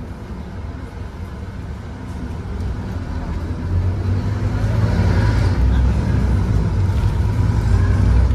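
Scania K230UB OmniLink bus's diesel engine heard from inside the saloon as the bus pulls away from a stop. The engine note builds and grows louder from about three seconds in as it accelerates.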